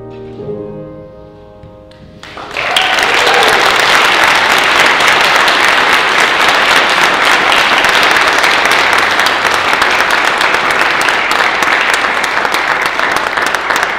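The last chord of the song's accompaniment dies away, then about two seconds in an audience breaks into loud, sustained applause.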